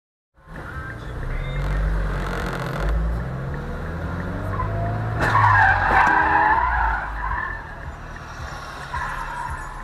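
Car tyres skidding and squealing loudly for about two seconds midway through, over steady engine and road noise heard from inside a car.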